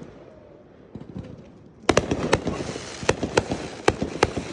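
Fireworks going off: a fading crackle for about two seconds, then a sudden run of sharp bangs and pops over continuous crackling.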